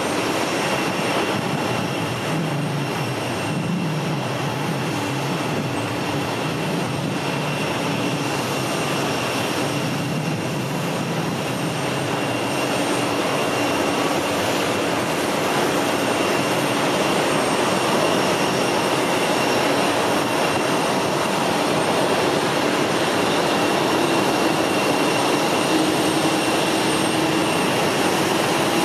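Jet airliner engines running steadily: a broad rushing noise with a constant high turbine whine, growing slightly louder in the second half.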